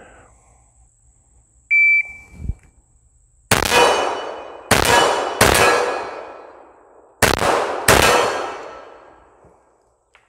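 A shot timer beeps once, then a Glock 21 .45 ACP pistol fires five shots: one, two close together, a pause, then two more close together. Each shot trails off in a long ringing tail.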